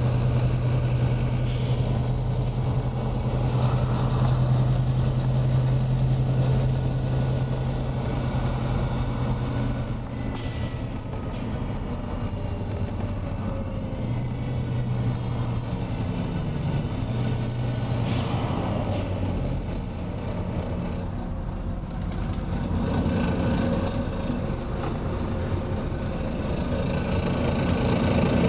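Volvo B9TL double-decker bus running, its six-cylinder diesel engine humming steadily and building up near the end, heard from on board. Three sharp air hisses from the bus's air system break in, at about a second and a half, around ten seconds and around eighteen seconds.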